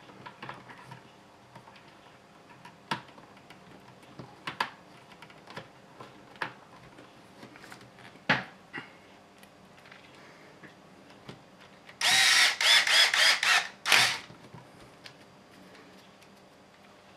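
Small kit parts and screws clicking as they are handled. About twelve seconds in, a cordless drill/driver drives a screw into the kit in several short pulses lasting about two seconds.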